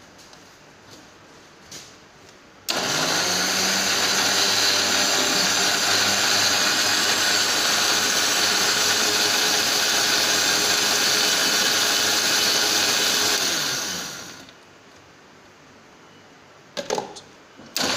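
Electric kitchen mixer-grinder blending a mango drink with ice cream and ice cubes. The motor starts about three seconds in, spinning up with a rising hum, runs steadily and loudly for about ten seconds, then winds down. After a few clicks near the end, it starts again.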